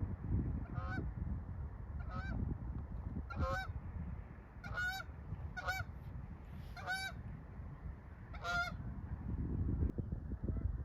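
Goose honking: about seven short calls, one every second or so, over a steady low rumble.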